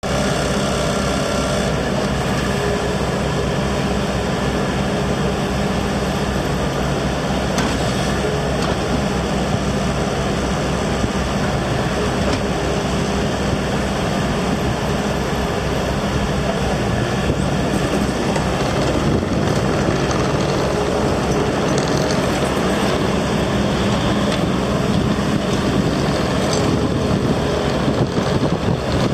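Bobcat T595 compact track loader's diesel engine running steadily.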